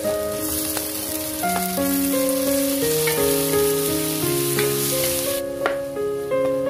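Onions, garlic and tomato wedges sizzling in a frying pan as they are stirred with a wooden spoon, over background music with a simple melody. The sizzling stops about five seconds in, and a sharp knock of a knife on a plastic cutting board follows.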